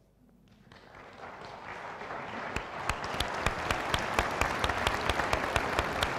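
Audience applauding. The applause starts softly and swells over the first couple of seconds into steady clapping, with a few sharp individual claps standing out.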